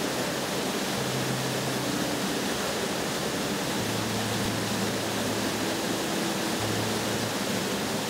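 Steady rushing roar of a waterfall and white-water river cascades.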